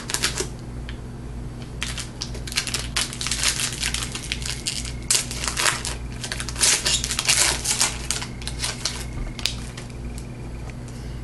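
Foil wrapper of a 2012 Topps football jumbo card pack being torn open and crinkled in the hands: a run of dense crackles and rustles, heaviest from about two to eight seconds in and thinning out near the end.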